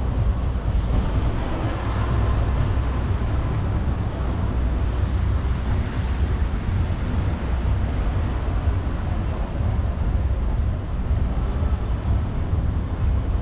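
Wind rushing over the microphone of a camera riding along on a bicycle: a steady, low rumbling rush with no breaks.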